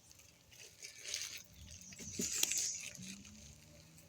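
Two short spells of soft rustling with a few light clicks, about a second in and again around two seconds in.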